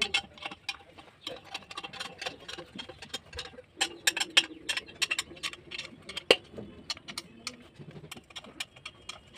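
Irregular clicks and light taps of metal parts being handled as a valve body and its bolts are fitted onto the round diaphragm housing of a truck air unit (DDU) during a repair-kit replacement.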